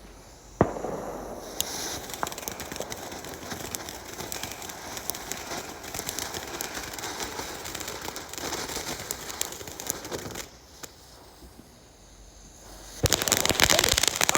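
Consumer fireworks going off: a sharp bang about half a second in, then steady crackling and hissing for about ten seconds. After a short lull, a much louder burst of dense crackling comes near the end.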